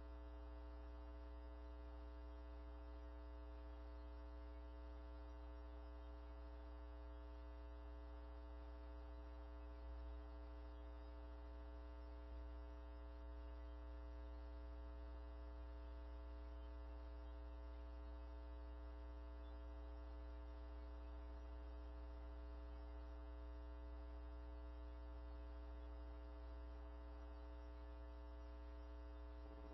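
Low, steady electrical mains hum with a buzz of many steady overtones, unchanging throughout.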